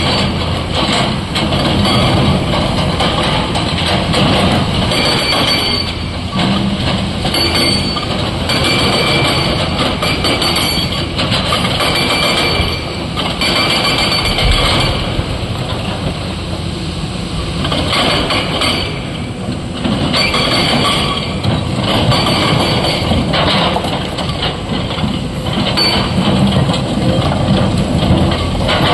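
Heavy excavator diesel engines and hydraulics running hard while broken rock is loaded into a steel tipper truck body, with repeated clattering and clanking of stone on steel.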